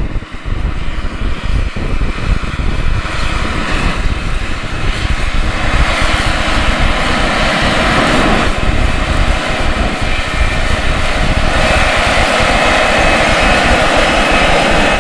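Case IH Magnum 400 tractor's diesel engine working under load as it pulls a 40 ft Case IH 550T air drill through corn stubble, a steady heavy drone with rumble. It grows louder over the first few seconds as the tractor draws near, then holds.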